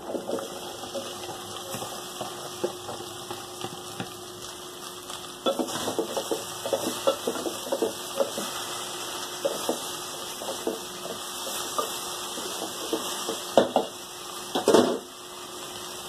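Sliced okra pushed out of a bowl into a metal pot, then stirred with a spoon over frying onions: scraping and clinking of the spoon against the pot, with light sizzling underneath. Two louder knocks of the spoon on the pot come near the end.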